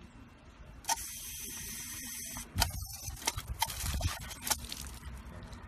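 Paw-pedal dog water fountain on a garden hose spurting as a German Shepherd steps on it: a hiss of spraying water starts about a second in, then a quick run of clicks and splashes from the pedal and the water.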